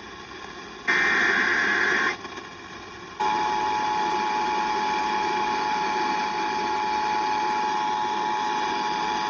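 Emergency Alert System tones over radio: a burst of digital SAME header data lasting about a second, starting about a second in, then from about three seconds in the steady two-tone EAS attention signal, which announces an emergency alert, here a severe thunderstorm warning.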